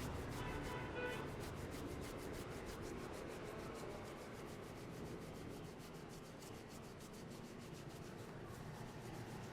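Hands rubbing briskly over hair and scalp in quick, even strokes, several a second, as in a traditional Indian head massage.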